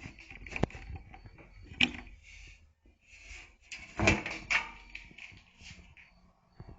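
Hands working inside the open base of a 3D printer: a few sharp clicks and knocks of small plastic and metal parts with scraping and rustling between them, the loudest about four seconds in.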